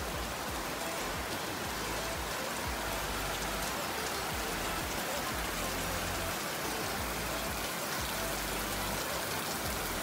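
Rain falling steadily on sandy ground and a concrete slab.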